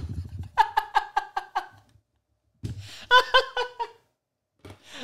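A man laughing hard into a close microphone in two bursts of quick ha-ha pulses, about six a second, the second burst starting just under three seconds in.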